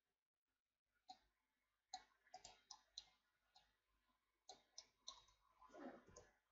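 Faint clicks of a computer keyboard and mouse: about a dozen short, sharp taps at an irregular pace, starting about a second in and bunching toward the end.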